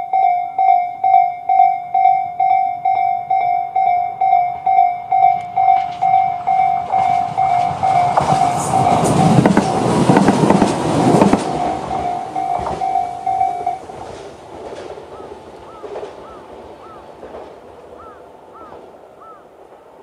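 Electronic level-crossing warning bell of the Tobu 'sound C' type ringing in an even repeated ding, about two and a half strokes a second, while a Tobu 8000 series electric train passes with a rush of wheel noise that is loudest about ten seconds in. The bell stops near fourteen seconds in, once the train has cleared the crossing.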